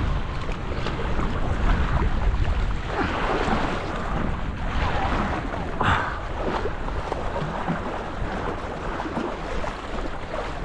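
Wind buffeting the microphone over choppy harbour water lapping against shoreline rocks, with brief louder surges about three and six seconds in.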